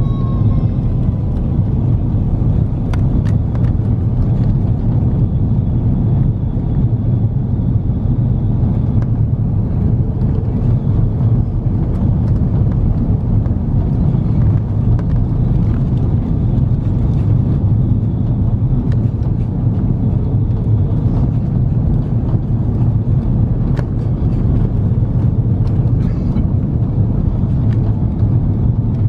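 Airbus A330-200 airliner heard from inside the cabin through the last of the approach, touchdown and roll-out on a wet runway: a loud, steady, deep rumble of engines, airflow and wheels, with a few faint clicks.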